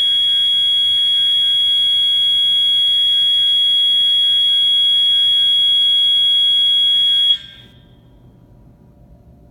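Edwards (EST) 692-7A-HSR fire alarm horn strobe giving a loud, steady, piercing electronic tone, with other fire alarm horns sounding underneath. About seven seconds in, all the alarms cut off suddenly, leaving only a faint low background.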